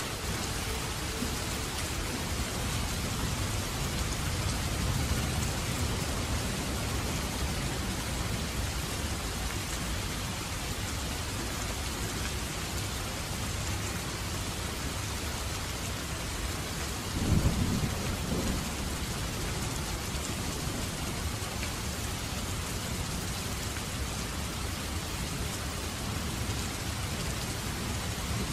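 Steady rainfall, an even hiss of rain with a low rumble underneath. A brief, louder low rumble comes a little past the middle.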